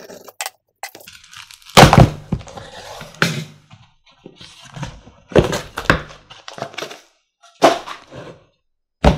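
Cardboard shipping box being opened and handled by hand: flaps pulled open and creased with rustling, and several sharp knocks as the cardboard and the boxed meter inside hit the desk.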